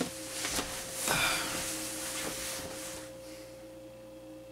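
Hammock fabric rustling, with a few light knocks, as a person climbs into the hammock and settles back. The rustle is loudest about a second in and dies away after about three seconds.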